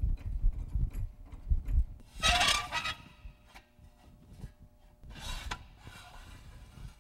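Steel jack stands being set under a raised car on a concrete floor: a few dull knocks, then two harsh metal-on-concrete scrapes, the first about two seconds in and a shorter one about five seconds in.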